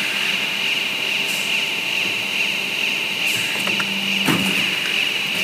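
Extrusion blow molding machine running with a steady high whine, a short hiss about three seconds in, and a clunk just past four seconds as the mold opens on the finished sea balls.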